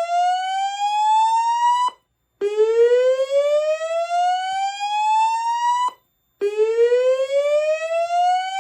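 Notifier DVC voice evacuation system sounding its slow-whoop alarm tone through its speakers: loud rising sweeps, each climbing for about three and a half seconds and then breaking off for half a second. One sweep ends about two seconds in, a second follows, and a third is still rising at the end.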